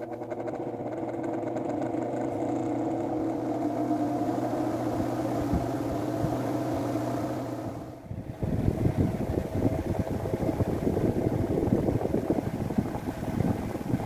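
Electric Britânia desk fan running: a steady motor hum with the whoosh of the spinning blade. About eight seconds in, it gives way to a loud, irregular rattle as the running fan shakes and knocks against the hard tile floor.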